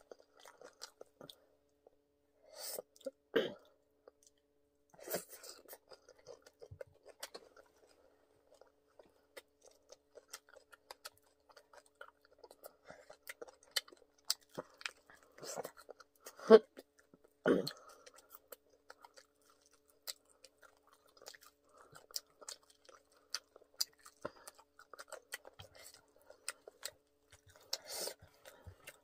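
Close-miked chewing of crispy fried chicken: wet mouth smacks and small clicks, with a few louder crunches, the loudest a little past halfway. A faint steady hum lies underneath.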